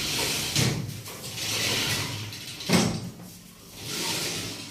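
Glass sliding doors of a UPVC kitchen cupboard sliding along their track, pushed back and forth in three runs, with a sharp knock a little under three seconds in.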